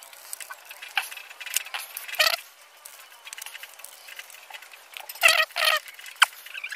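Light clicks and rattles of hard plastic toy-rifle parts and a hot glue gun being handled, with three short squeaky pitched sounds, one about two seconds in and two close together near five seconds.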